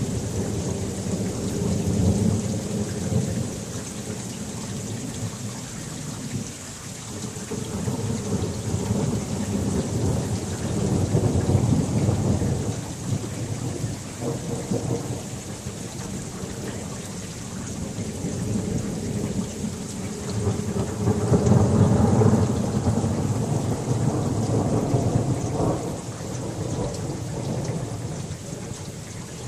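Thunderstorm: steady heavy rain with long rolling rumbles of thunder that swell and fade several times, loudest a little past the middle.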